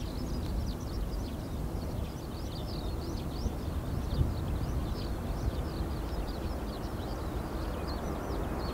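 Airbus A340-300's four CFM56-5C turbofans at takeoff power as the airliner lifts off and climbs: a steady low rumble, swelling in the middle range near the end. Many quick high chirps of small birds run over it.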